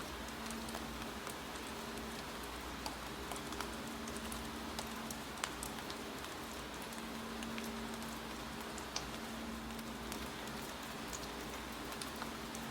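Steady rain, with scattered sharp drips or clicks falling irregularly through it and one louder click about halfway through. A faint low hum comes and goes underneath.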